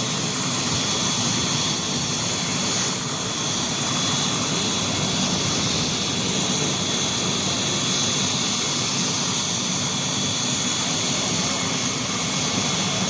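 Helicopter in flight: a steady, unbroken engine and rotor drone with a thin high turbine whine over it.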